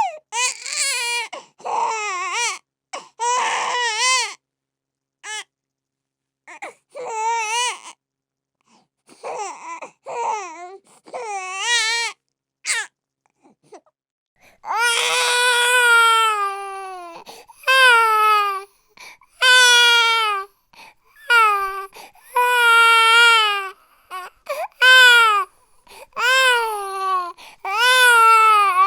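A baby crying: short, broken cries with pauses in the first half, then from about halfway a run of long, loud wails, each a second or more, with quick breaths between.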